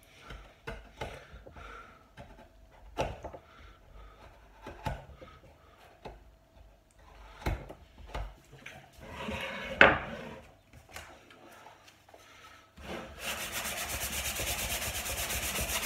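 Hand-working of an old wooden tabletop's rough ends: scattered short scrapes and knocks, the loudest about ten seconds in. From about thirteen seconds, sandpaper rubs steadily back and forth over the wood.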